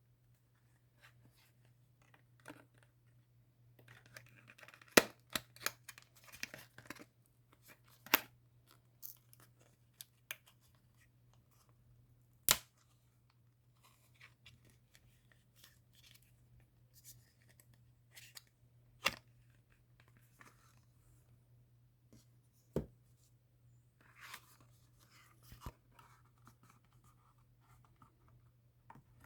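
Packaging of an UNO Platinum Edition set being opened by hand: rustling and tearing with sharp clicks and snaps every few seconds, over a faint steady low hum.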